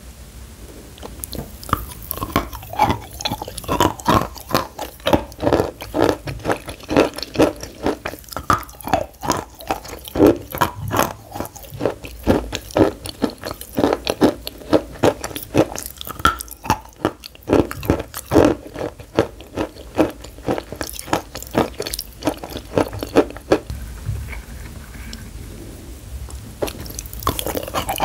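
Close-up crunching and chewing of a dry, powdery white pressed stick, dusted in powder: quick crisp crackles several times a second that thin out near the end.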